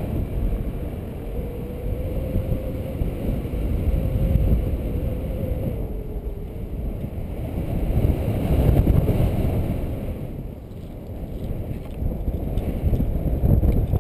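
Wind rushing over the microphone of a paraglider pilot in flight: a low, steady rumble that swells and eases. A faint, steady hum is heard under it for the first several seconds.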